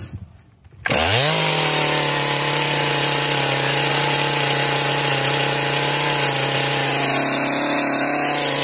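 Stihl MS400C two-stroke chainsaw engine firing up about a second in, its pitch climbing quickly, then running at a steady high speed without revving.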